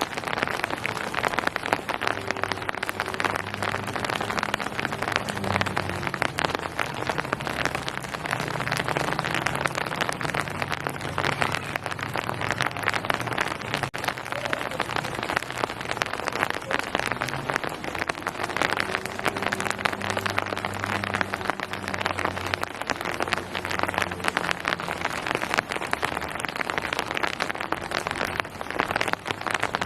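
Steady rain falling on surfaces, a dense even patter of raindrops. A faint low hum comes in twice beneath it, a few seconds in and again around twenty seconds in.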